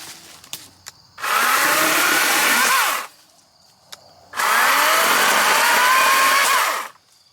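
Wild Badger 40-volt battery chainsaw run in two bursts of about two seconds each, cutting through wood. Each time the motor's pitch rises as it ramps up speed, then it holds steady under load before stopping.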